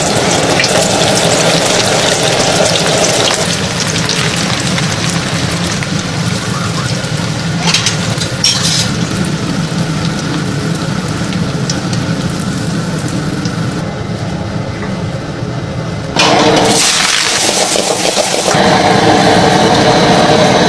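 Battered king tiger prawns deep-frying in hot oil, a steady sizzle and crackle. About two thirds of the way in the sound turns abruptly louder, a rush over a wok on a high gas flame.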